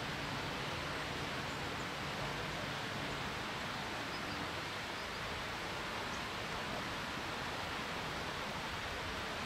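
Steady outdoor background hiss with no distinct events; a faint low hum fades out in the first few seconds.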